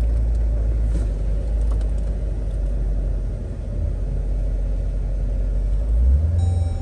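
Jeep Grand Cherokee Trackhawk's supercharged V8 running with a deep low rumble, heard from inside the cabin at low speed. About six seconds in, the rumble steps up in pitch and gets a little louder as the engine pulls harder.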